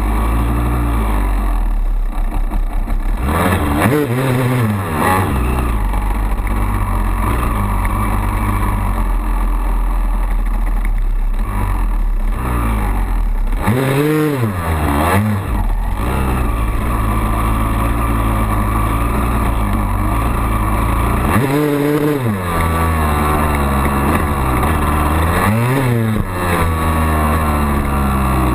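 2002 Honda CR250R's single-cylinder two-stroke engine under way, its revs rising and falling as the throttle is worked. Quick climbs and drops in revs come about four seconds in, twice around fourteen to fifteen seconds, and again about twenty-two and twenty-six seconds in.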